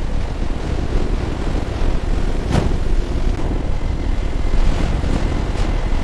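Train running with a steady low rumble, and a short sharp crack about two and a half seconds in.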